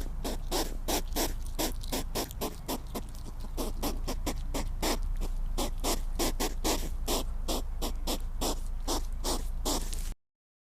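An animal giving a rapid series of short calls, about three or four a second, over a steady low hum.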